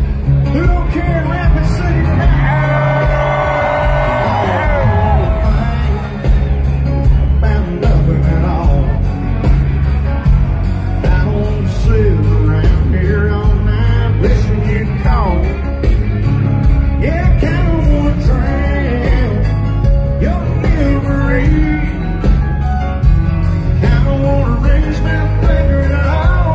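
Live country band playing loud in an arena, with drums, electric guitars and a sung lead vocal, heard from within the crowd with a heavy, boomy low end.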